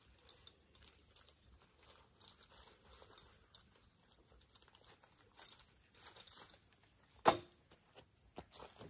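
Light rustling and small clicks of gear being handled, with one sharp, much louder click about seven seconds in.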